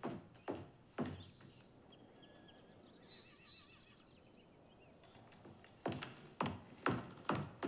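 Footsteps on the wooden floor of an old house: three steps in the first second, then a quicker run of steps near the end. Faint bird chirps sound in between.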